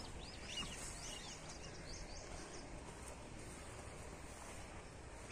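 A bird chirping in a fast series of short, arched, high chirps, about three a second, which stop about halfway through, over faint outdoor background noise.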